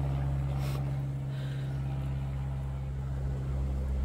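Steady low engine drone of an aircraft flying overhead, an even hum without change in pitch.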